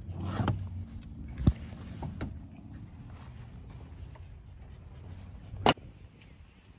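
Scattered clicks and knocks of someone getting out of a car, then a car door shut with one loud thump near the end.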